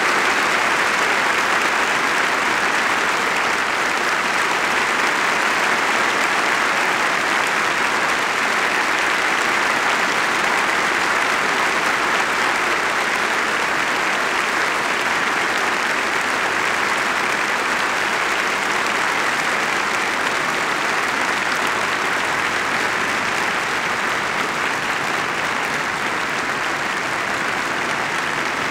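Audience applauding, a long steady ovation that eases off a little toward the end.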